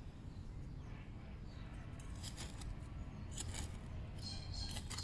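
Outdoor garden ambience: a low steady rumble of wind on the microphone, a few brief scraping sounds around the middle, and a bird starting to call with high-pitched notes about four seconds in.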